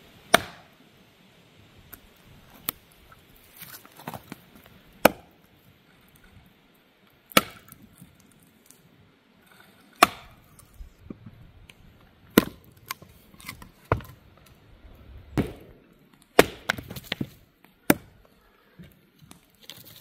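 Axe splitting hard seasoned firewood on a stump: about ten sharp chops, roughly one every two seconds, with lighter knocks between them.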